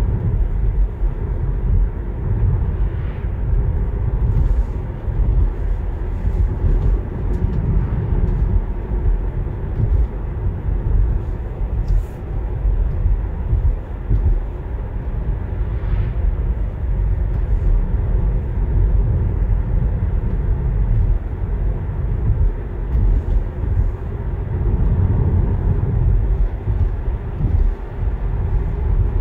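Road noise inside a Tesla Model 3 cruising at about 70 to 80 km/h: steady tyre roar and wind with a deep, slowly swelling rumble. No engine note, as the car is electric.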